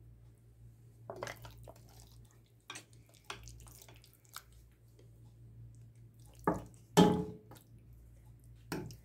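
Wet marinated raw mutton being spooned from a glass bowl into an oiled pot: soft wet plops and a serving spoon scraping and knocking against the bowl and pot, a few scattered sounds with the two loudest about six and a half and seven seconds in. A faint steady low hum runs underneath.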